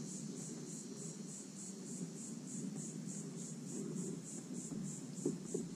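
Insects in the shoreline trees buzzing in a high, even pulse about three times a second, over a low, steady rushing noise.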